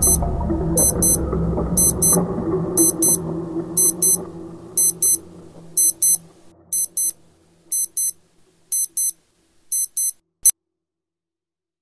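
Electronic alarm beeping in quick high-pitched pairs, about one pair a second, over background music that fades away. Near the end a sharp click sounds and the beeping stops.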